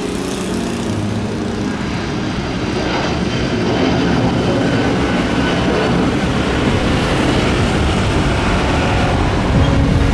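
An Airbus A330's twin jet engines at take-off power as the airliner lifts off and climbs away: a steady, dense jet noise that grows louder about four seconds in.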